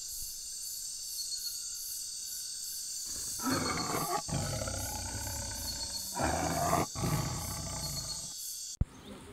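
Tiger roaring twice, the first roar about three seconds in and the second about six seconds in, with a low rumble between them, over a steady hiss. The sound cuts off abruptly near the end.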